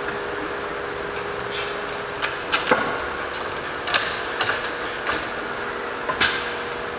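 Irregular sharp knocks and clinks of metal parts as an engine hanging from a shop crane's chains is worked into a car's engine bay by hand, over a steady hum; the knocks come in small clusters, the loudest just before the middle.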